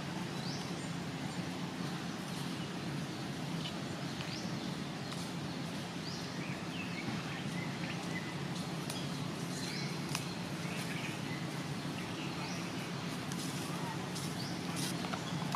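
Outdoor ambience: a steady low hum under scattered short, high chirps.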